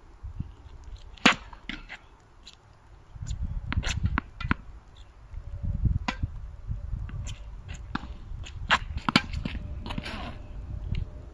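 Tennis balls struck by rackets and bouncing on an outdoor hard court: a series of sharp pops during a rally and serve, the loudest about a second in, over a low rumble.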